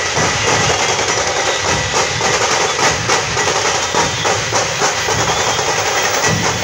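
Dhol drums of a procession drum troupe beating a loud, dense rhythm of repeated strokes.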